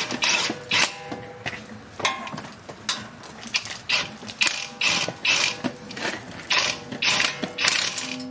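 The wheel hub assembly's mounting bolts being run in with a wrench: a series of short mechanical rattling bursts, about one or two a second.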